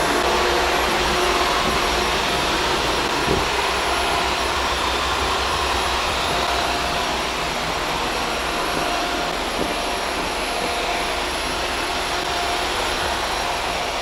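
Shark Stratos upright vacuum cleaner running steadily on its hard-floor setting as it is pushed across tile, a constant rush of air with a faint steady tone in it.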